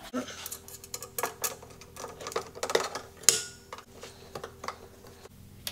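Irregular small metallic clicks, clinks and knocks of hand-fitting screws and a speed-controller box to a metal bracket, with one louder knock a little past halfway.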